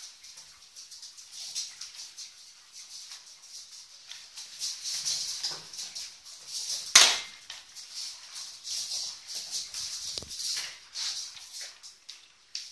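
Flat mop pad swishing and scraping back and forth across a laminate floor in quick, uneven strokes while a puppy tussles with the mop head. A sharp knock about seven seconds in.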